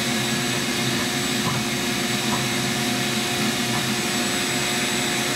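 Vacuum cleaner running steadily with a constant whine, its hose nozzle at the stove opening sucking up the soot dust stirred by brushing out the flue pipe.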